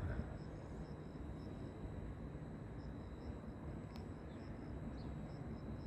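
Faint outdoor ambience: a steady low rumble, with an insect chirping in short, evenly spaced pulses above it and a single faint click about four seconds in.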